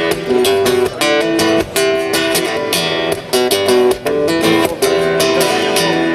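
Acoustic guitar strumming chords in an instrumental break between sung verses.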